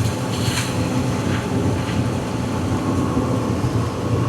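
Cat 320 EL excavator's diesel engine running steadily, with a few faint scrapes or rattles in the first couple of seconds.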